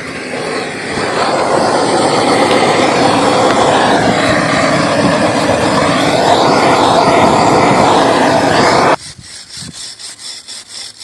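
Self-igniting gas torch burning with a steady rushing sound, heating the cad-weld mould to dry it of moisture. It swells over the first second or two and cuts off abruptly about nine seconds in.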